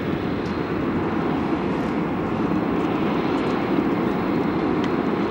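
Steady rumble of a Boeing 737-800's twin CFM56-7B turbofan engines at climb thrust as the jet climbs out after takeoff, heard from the ground at a distance.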